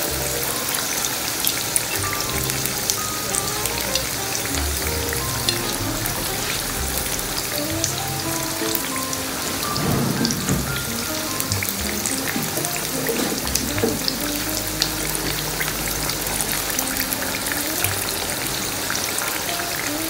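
Sliced onions sizzling in hot oil in a frying pan, a steady hiss full of small pops, over background music of short stepping notes.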